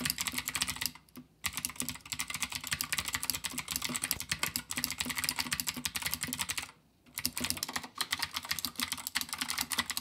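Fast typing on a Keychron K2 mechanical keyboard fitted with clicky Gateron Blue switches: a dense stream of sharp key clicks. The typing breaks off briefly twice, about a second in and again about seven seconds in.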